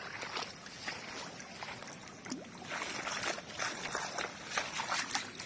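Footsteps in sandals splashing through shallow water and wet mud on a concrete road: an irregular run of wet steps, busier in the second half.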